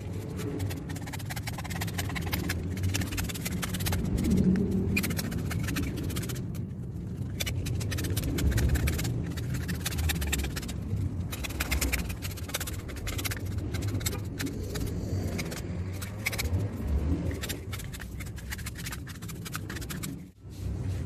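Irregular scratchy scraping and handling noises from work on a white PVC cut-out, over a low steady hum.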